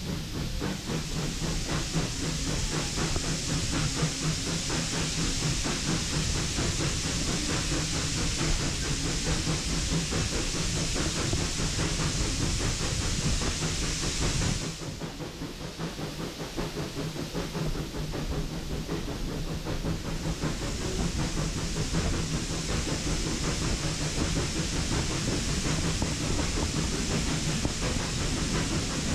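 Heritage steam train under way, heard on board: the coach rumbles and rattles on the rails, with a steady steam hiss over it. The hiss drops away about halfway through, leaving the quieter rumble, and comes back some six seconds later.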